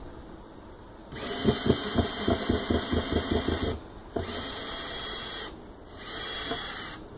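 Cordless drill running in three bursts at a deck board's screws: the first, a couple of seconds long, with a rapid knocking about five times a second over the motor whine, then two shorter steady runs.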